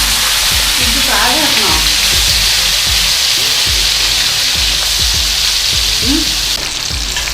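Silkworm pupae stir-frying in hot oil with onions and spices: a loud steady sizzle, with the utensil knocking and scraping against the pan again and again.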